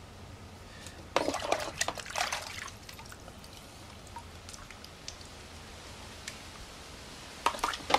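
Water splashing and dripping as a cleaned blue crab is rinsed of its guts, in two spells: about a second in, and again near the end.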